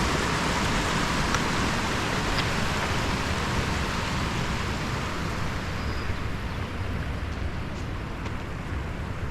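Waterfall's rushing water, a steady, even rush that thins slightly in its upper range over the last few seconds.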